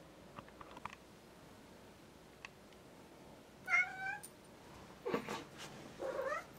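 Domestic cats meowing: a short meow almost four seconds in, a rougher cry about a second later, and a last meow rising in pitch near the end.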